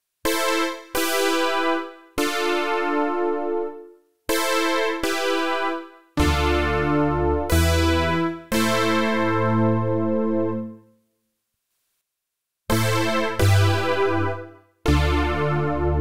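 Roland JD-800 software synthesizer (Roland Cloud) playing its 'Polysynth' preset: a series of bright chords, each struck sharply and fading over a second or two. Low bass notes join about six seconds in, and there is a short pause about eleven seconds in.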